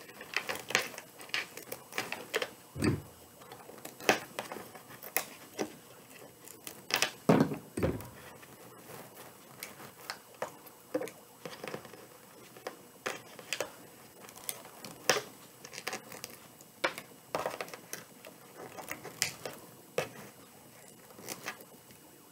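Wire cutters snipping through wire-cored pipe cleaners: an irregular series of sharp clicks and snips. There are a few duller, louder thumps about 3 and 7 seconds in.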